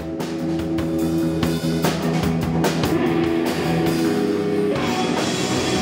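Rock music with guitar and drums, loud and steady.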